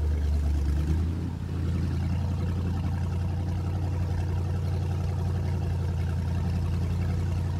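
Outboard motor of a bass boat running at speed with a steady, low drone.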